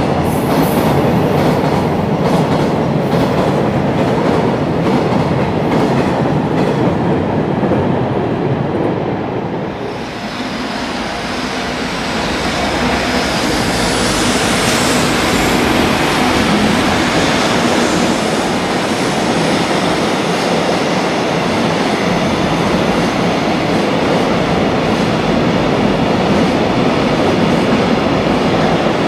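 Freight trains on elevated track: the steady rumble and clickety-clack of wagons rolling past. The noise eases off about ten seconds in, then builds again as another train comes through, with a higher hiss of steel wheels on rail.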